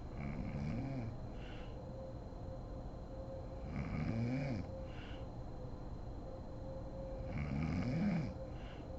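A sleeping woman snoring: three snores about four seconds apart, each a pitched rasp that rises and falls, followed about half a second later by a shorter, softer sound.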